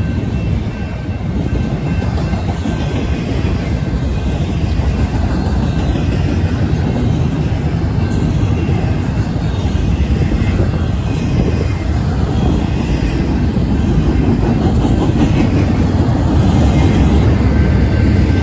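Double-stack intermodal freight train's container well cars rolling past close by: a steady, loud rumble of steel wheels running on the rails.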